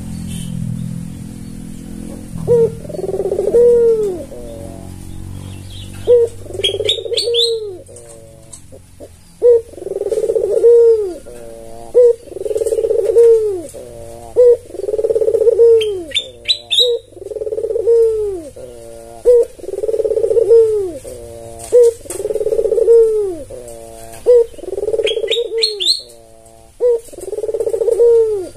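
White albino Barbary dove (puter) cooing over and over, each coo a rolling rise-and-fall note repeated about every second and a quarter. A brief high chirping from another bird breaks in three times.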